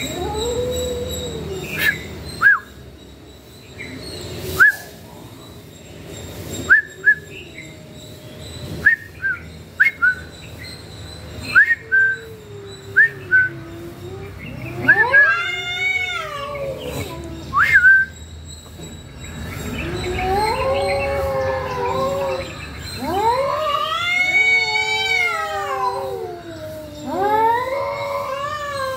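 Cats yowling at each other in a standoff: long, wavering moans that rise and fall in pitch, low at first and then several louder, drawn-out yowls in the second half.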